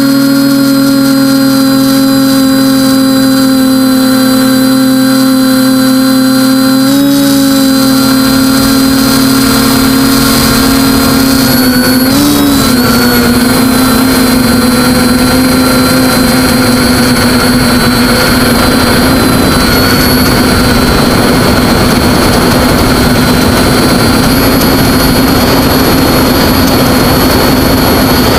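TBS Discovery quadcopter's brushless motors and propellers in flight, heard from the craft's own camera: a loud, steady whine with brief pitch wobbles about seven and twelve seconds in. A rushing noise grows in behind it from about eight seconds in.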